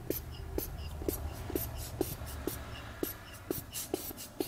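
Hand pump being worked in quick, even strokes, about two a second, each stroke a short click with a brief squeak, pressurising a two-stroke scooter engine's crankcase for a leak test.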